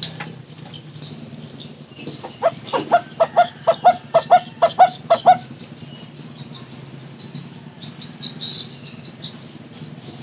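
Barbet (takur teguk-teguk) calling a run of about a dozen short low notes, about four a second, getting louder toward the end. High chirping of insects or small birds and a low steady hum run underneath.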